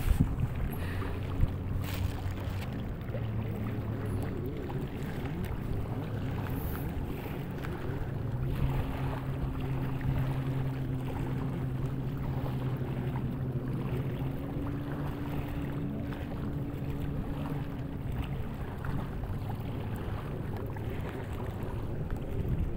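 A motor drones steadily in the background, its hum holding a few steady pitches that shift now and then, with wind noise on the microphone.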